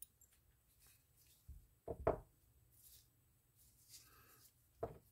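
A few light, short knocks and clicks of small hand tools and metal reel parts being handled on a spinning reel's body: one about a second and a half in, a double knock about two seconds in, and one near the end, with near silence between.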